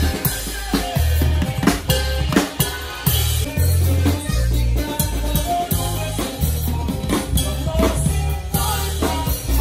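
Live band music heard from on stage: a drum kit with kick and snare driving the beat under steady electric bass notes. No vocals are heard.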